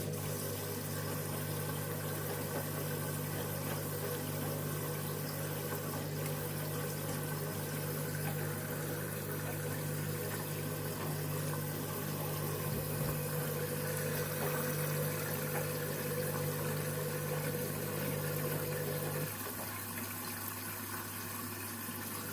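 Candy washing machine taking in water during its automatic load-sensing stage: water running into the drum over a steady hum, and the hum cuts out about nineteen seconds in.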